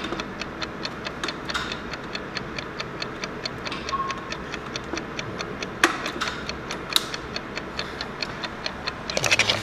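Rapid, even ticking, about four to five ticks a second, with two sharper clicks about six and seven seconds in, a short faint beep about four seconds in, and a brief burst of noise near the end.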